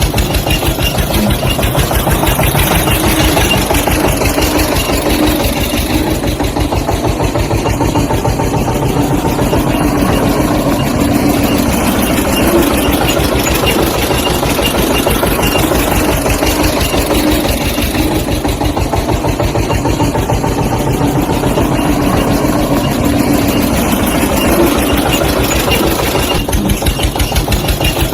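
Small engine running steadily at an even speed, with a fast, regular pulsing beat.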